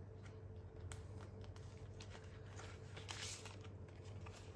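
Faint rustling and light clicks of polymer banknotes and a plastic binder pocket being handled, with a slightly louder rustle about three seconds in, over a faint steady hum.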